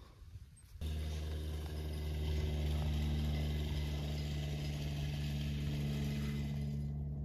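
An engine running steadily at an even pitch, cutting in abruptly about a second in.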